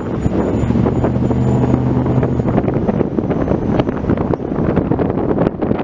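Car engine humming steadily with road and wind noise. After about two and a half seconds the hum gives way to a rougher rumble with many short knocks.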